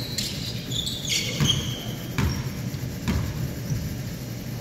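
Basketball bouncing on a hardwood gym floor in a few low thumps about a second apart, with short high squeaks of sneakers on the floor in the first second or so.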